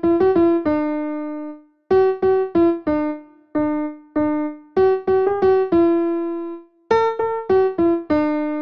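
Solo piano-like keyboard playing a simple children's melody of single struck notes, each note dying away, in short phrases with a couple of brief pauses and a longer held note in each phrase.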